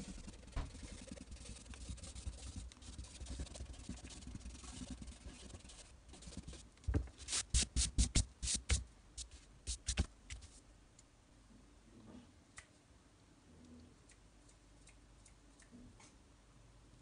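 Pen scratching on paper in quick short strokes, drawing fur. About halfway through comes a run of about ten sharp, loud swipes as a hand brushes across the sheet, then only a few faint ticks.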